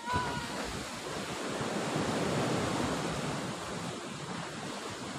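Sea surf washing against a rocky shore, with wind on the microphone: a steady rushing noise.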